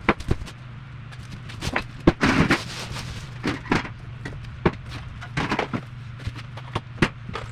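Irregular knocks, clicks and a brief rustle as someone moves about and handles things, over a steady low hum.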